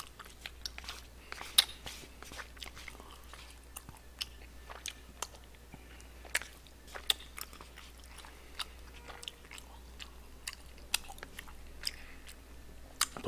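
Close-miked chewing of chewy tteokbokki rice cakes, with wet mouth smacks and clicks at irregular intervals.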